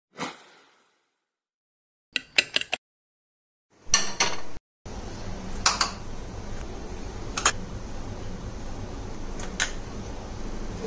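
Small ceramic bowls set down on a stone countertop: a sharp clink every couple of seconds over a steady background hum. Before that come a few short clatters between totally silent gaps.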